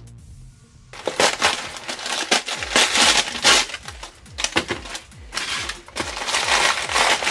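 Stiff paper crunching and crackling in irregular bursts as it is cut and worked by hand, starting about a second in. Soft electronic music with a steady beat runs underneath.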